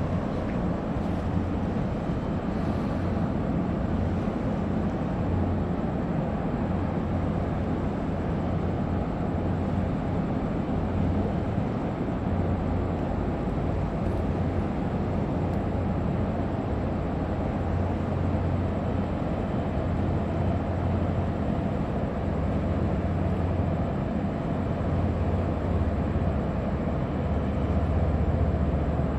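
Low, steady drone of a large container ship's engines and machinery as its hull passes close by, growing slightly louder near the end.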